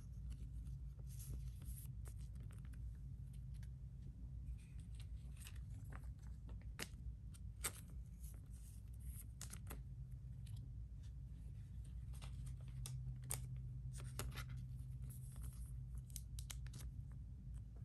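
Faint rustling and scattered light clicks of thin clear plastic card sleeves as trading cards are slid into them, over a low steady hum.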